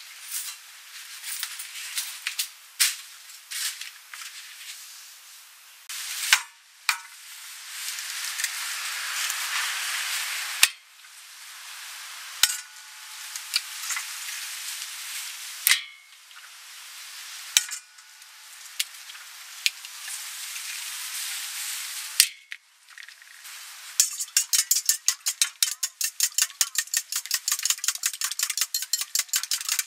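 Eggs cracked on the rim of a stainless steel bowl, each crack a sharp knock, several seconds apart. Then, about six seconds from the end, the eggs are beaten with a metal whisk: fast, even clinks against the steel bowl.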